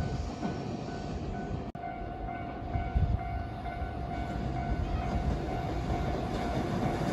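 A train running past, its rumble carrying a steady whine and a fainter tone that repeats on and off.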